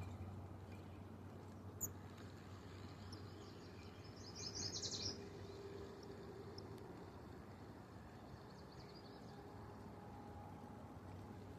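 A bird gives one short, rapid high trill about halfway through, over a faint steady outdoor hum; a single sharp click comes about two seconds in.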